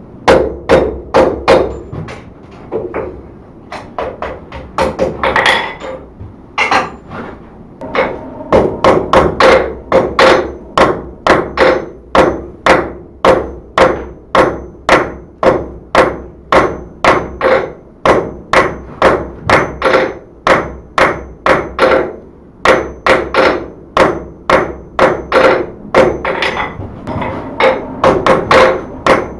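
Hand hammer striking white-hot steel on an anvil to forge-weld a bent-over, fluxed bar, each blow with a ringing note. A few scattered blows come in the first several seconds, then a steady run of about two blows a second with short pauses.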